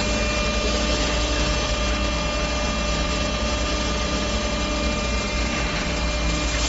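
Hydraulic power unit of a welded steel wire mesh bending machine running: an electric motor and pump giving a steady low hum with a constant whine above it.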